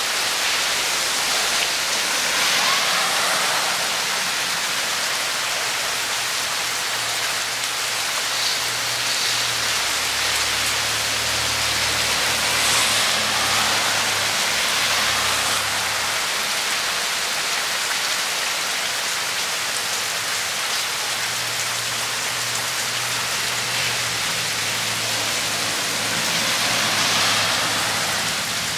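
Steady rain falling, with rainwater running and splashing down rocks and over the ground: storm runoff during a flood.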